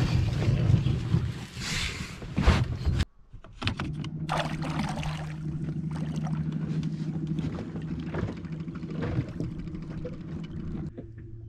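A small boat's outboard motor running steadily, after about three seconds of loud knocking and rushing noise; the motor's pitch drops slightly near the end.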